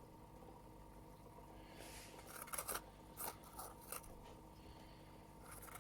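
Faint room tone, then from about two seconds in a few short, crisp clicking and scraping handling sounds, and one more near the end.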